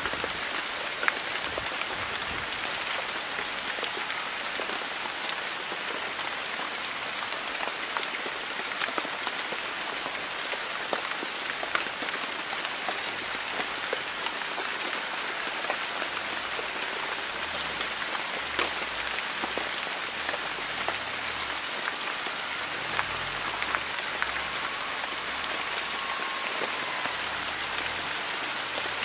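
Steady heavy rain falling, a continuous hiss dotted with many sharp individual drop taps close by.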